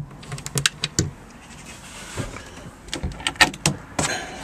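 Irregular sharp clicks and knocks of hands and a handheld camera against the van's interior metal and plastic panels. There are about a dozen, bunched from about half a second to one second in and again from about three to four seconds in.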